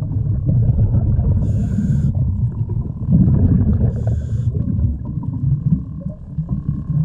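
Muffled underwater noise from a camera carried by a swimming freediver: a steady low rush of water, with two short bursts of hiss, the first about one and a half seconds in and the second about four seconds in.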